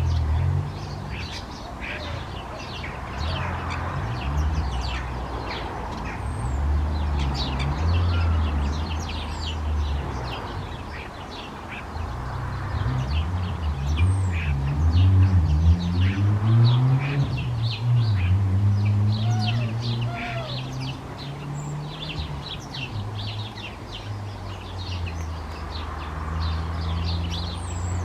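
Many house sparrows chirping continuously in short chips. Under them runs a louder low engine drone whose pitch rises about halfway through, then settles.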